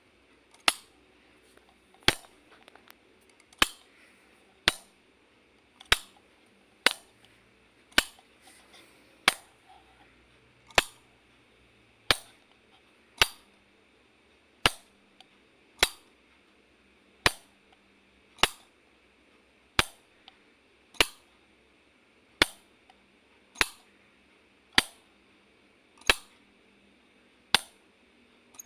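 Wall light switch being flicked, a sharp single click about every second and a bit, over and over at an even pace.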